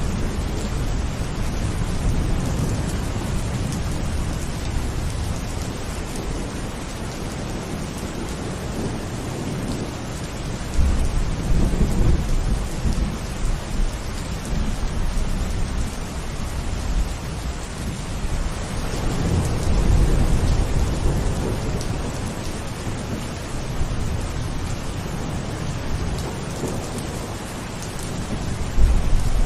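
Steady rain falling, with rolling thunder rumbling low underneath; the rumble swells about ten seconds in, again around twenty seconds, and once more near the end.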